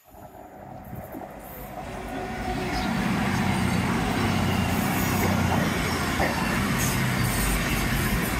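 A train passing close by on the line, getting louder over the first three seconds and then running loud and steady.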